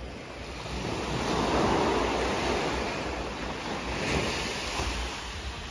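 Small sea waves breaking and washing up a sandy beach, swelling to a peak about two seconds in and again about four seconds in. Wind buffets the microphone with a low rumble underneath.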